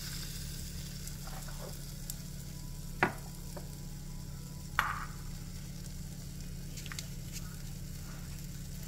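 Egg-and-mozzarella chaffle batter sizzling steadily inside a closed Dash mini waffle maker, with two sharp pops about three and five seconds in.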